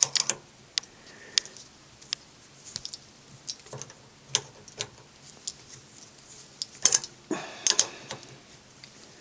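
Irregular metallic clicks and taps of a spanner working a nut on a homemade 6 mm bolt spring compressor, as it is unscrewed to release a compressed transmission spring. A brief louder clatter comes about seven seconds in.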